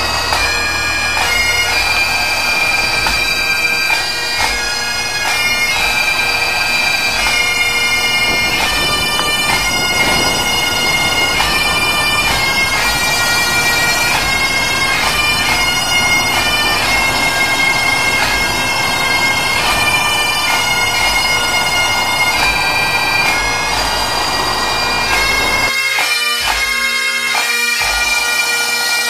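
Bagpipe music: a slow melody played over a steady drone.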